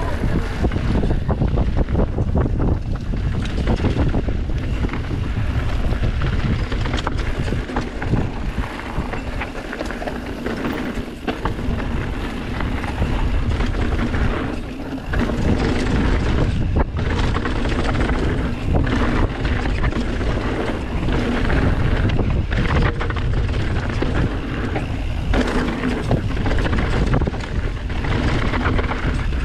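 Mountain bike riding down a dirt trail: tyres rolling over ground and rocks with many small knocks and clicks from the bike, and wind buffeting the GoPro's microphone.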